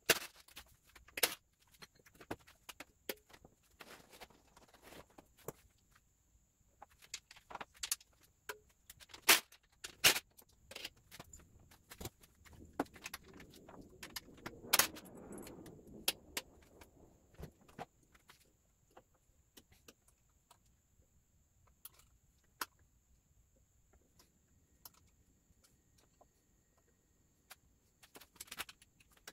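Scattered metallic clicks, clinks and knocks of a cordless drill-driver, tools and small bolts being handled while a motorcycle's gas tank is unbolted. A softer spell of rustling noise comes about halfway through.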